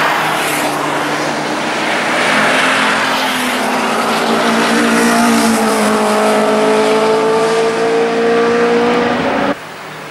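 Cars driven hard on a race circuit: a loud mix of engine and tyre noise, then one car's engine holding a steady note under load before the sound cuts off abruptly near the end.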